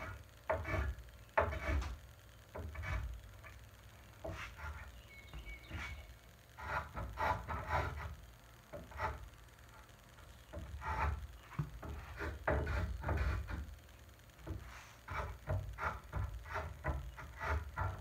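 Lie-Nielsen 60-1/2 rabbeting block plane cutting chamfers on the edges of a hardwood chair leg, partly across end grain. It makes many short cutting strokes in irregular runs, with brief pauses between them.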